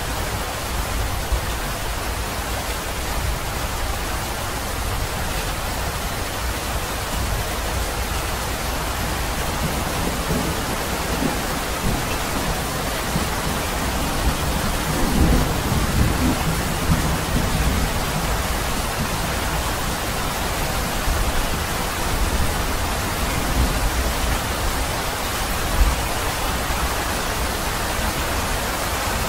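Steady rainfall hissing, with a low rumble of thunder swelling about halfway through.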